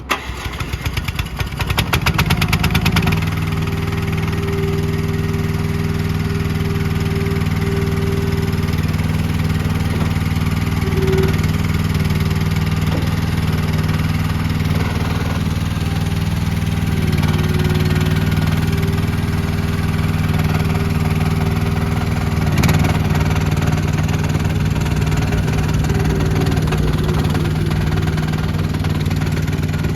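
Gas engine of a 2024 YSRT14 skid steer loader starting up: rapid pulsing for about three seconds as it catches, then running steadily. A single short knock comes about 23 seconds in.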